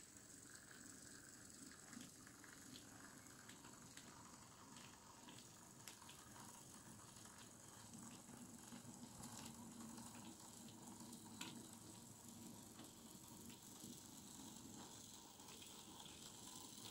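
Faint running of an N-scale model freight train: the small electric motor and gears of the BB63500 locomotive hum, and the wheels tick irregularly over the track. The hum is strongest about halfway through, as the train passes closest.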